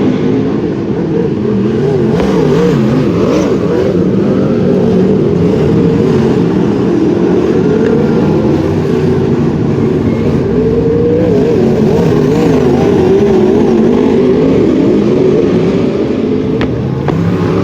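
Several wingless sprint car engines racing on the track. Their overlapping engine notes run loud and steady, with the revs rising and falling throughout.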